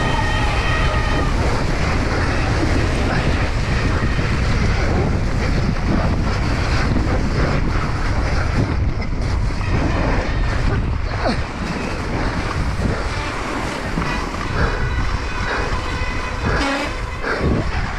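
Heavy wind noise on a mountain biker's action camera microphone, with the tyres hissing and skidding through slushy snow at speed. Occasional sharp knocks from the bike jolting over ruts.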